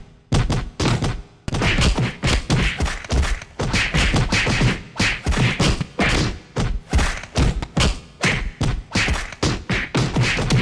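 Fight sound effects: a quick, continuous series of punch and body-hit impacts, about two to three a second, each a sharp thud with a short decay.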